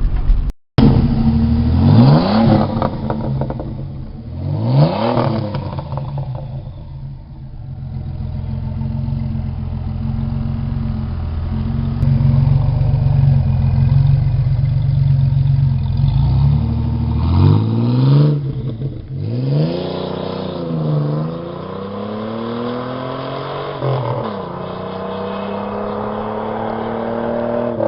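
A 1985 Pontiac Fiero GT's 2.8-litre V6 exhaust through a new Flowmaster muffler and 3-inch pipe, with the car accelerating. The revs climb and fall back several times as it goes up through the gears, with steadier cruising stretches between.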